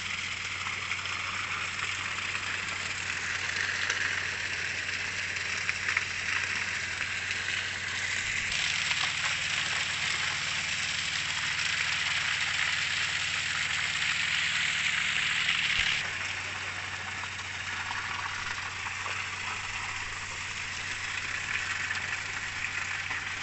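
Sand-and-water slurry gushing from a discharge pipe and splashing onto the mud of a backfilled pit, over the steady hum of the pump engine. The rushing splash gets brighter and a little louder about a third of the way in, then drops back about two-thirds in.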